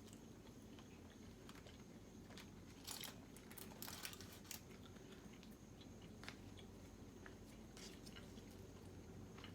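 A person chewing food with faint, crisp mouth clicks and crunches, a cluster of them about three to four and a half seconds in.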